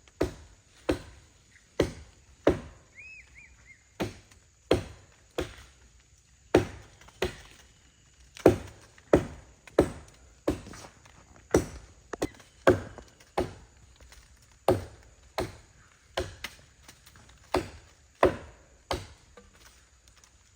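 Wood being chopped by hand with a bladed tool, a steady run of sharp blows at about one and a half strokes a second.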